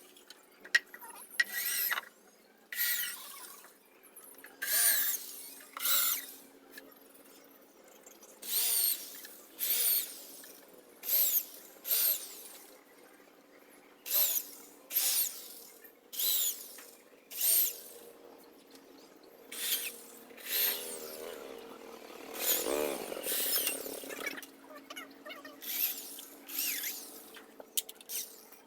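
Short rasping strokes of a hand tool on wood, repeated roughly once a second in an uneven rhythm.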